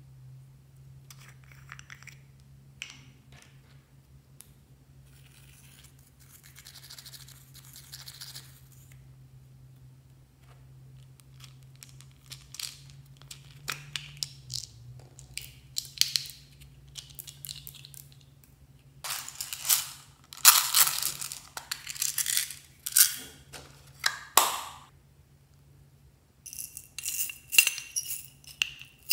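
Hands handling small plastic slime containers: lids clicking and scraping open, then, from about two-thirds through, bursts of loud rattling as small plastic beads are shaken and tipped out of a plastic box into a glass dish. Near the end, more rattling and clicking as a plastic case is opened.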